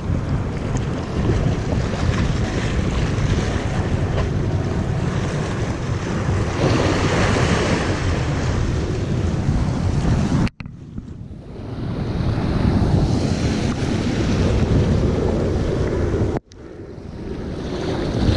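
Wind buffeting the microphone over the wash of sea waves breaking against jetty boulders, a steady noise that drops out abruptly twice, about two-thirds of the way through and again near the end.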